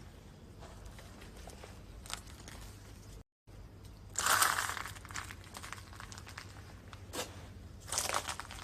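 Two short crunching, rustling noises, about four and eight seconds in, with a sharp click between them, over a low steady hum.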